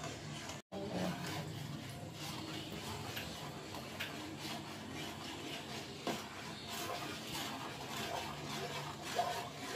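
A long metal spoon stirring and scraping around a pan of hot milk while a flour batter is poured in, with scattered small clinks of metal on metal. The sound cuts out for a moment under a second in.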